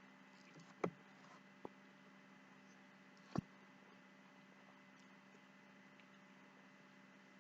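Near silence: room tone with a steady low hum, broken by three short knocks, about a second in, a little later, and about three and a half seconds in.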